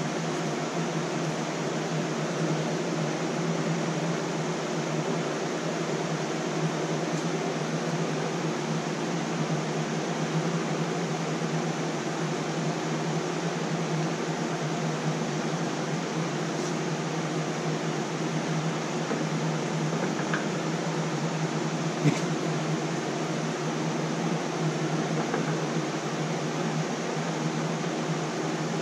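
Steady whir of room cooling fans running, with a constant low hum. One short click comes about three-quarters of the way through.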